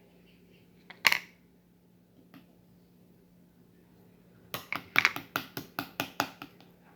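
Slime being pressed and squeezed by hand, giving one short crackle about a second in, then a quick run of sharp clicking pops, about six a second, from about halfway through.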